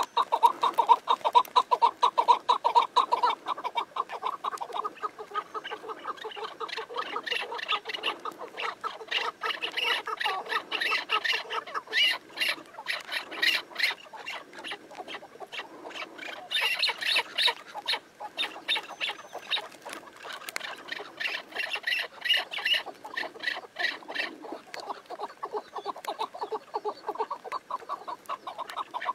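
Chukar partridges calling in fast runs of repeated clucking notes. A lower run comes in the first few seconds, then two long stretches of higher, sharper notes.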